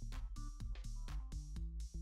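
Background electronic music: a melody of short stepped notes over a steady beat.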